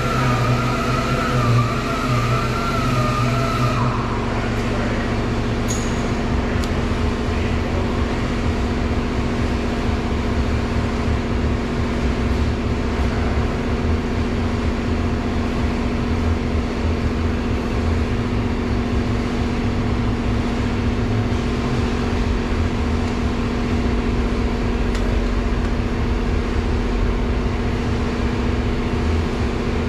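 Steady motor-vehicle hum and low rumble, with a siren wailing for the first few seconds.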